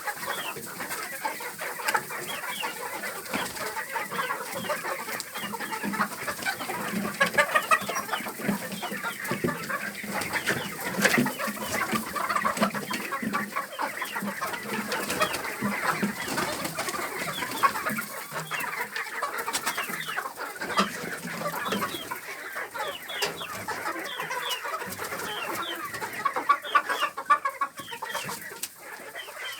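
A flock of laying hens clucking continuously, many short calls overlapping.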